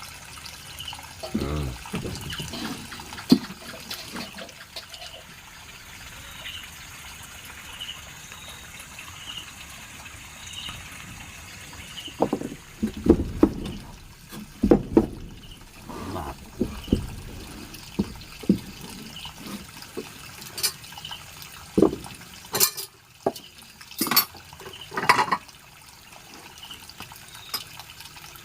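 Water trickling and sloshing, with a faint high chirp repeating about once a second. From about halfway on, scattered sharp knocks and clunks.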